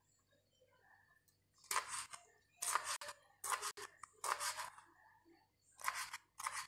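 Knife chopping a pile of black wood-ear mushrooms on a cutting board: about six short cutting strokes, the first about two seconds in.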